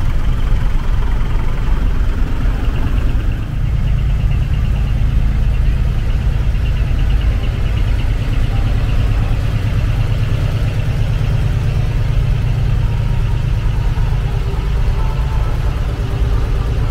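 Diesel engines of parked decorated art trucks idling, a steady low drone with a brief dip about three and a half seconds in.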